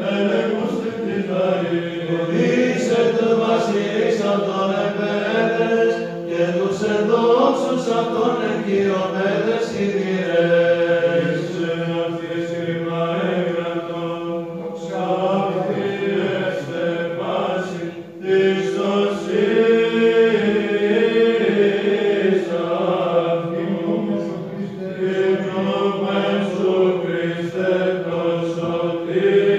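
Byzantine chant (psalmody) sung by male monastic voices: a slow melismatic melody over a steady held drone note, the ison. The singing breaks off briefly about eighteen seconds in, then goes on.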